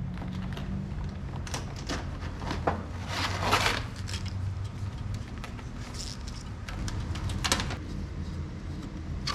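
Hands working with wiring and parts: scattered clicks and a louder scraping rustle about three and a half seconds in, then a sharp click near the three-quarter mark, over a steady low hum.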